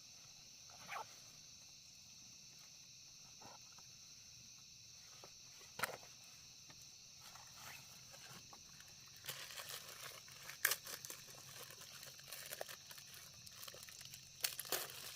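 A steady high-pitched drone of insects, broken by a couple of single clicks and then, from about nine seconds in, a run of irregular crackling rustles.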